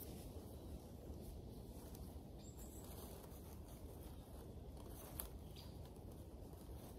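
Faint rustling and scraping of dry leaves and soil as a wooden-handled hand tool digs up snowdrop clumps, over a low steady outdoor background, with a faint click about five seconds in.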